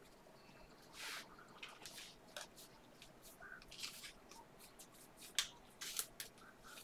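Basketball trading cards being slid one at a time off a stack in the hand: faint, irregular rasps and flicks of card stock, the sharpest ones near the end.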